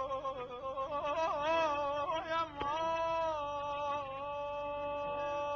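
Background music in Middle Eastern style: a solo voice sings an ornamented melody with rapid warbling trills, then settles into a long held note from about three seconds in.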